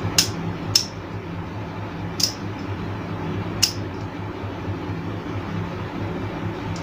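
Light clicks and taps from handling the opened table fan's switch block and its contact pins, four sharp ones in the first four seconds, over a steady low hum.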